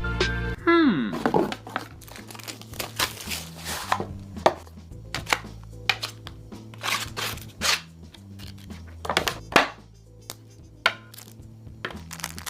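Background music with a falling swoosh effect about a second in, then irregular sharp taps and short scrapes over the music.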